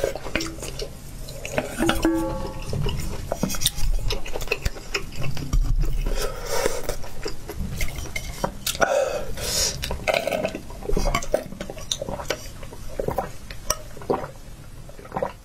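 Close-up eating sounds: chopsticks clicking against a stainless-steel bowl with chewing and slurping of hot-pot food, one brief metallic ring about two seconds in. Later comes sipping a drink through a straw from a glass jar.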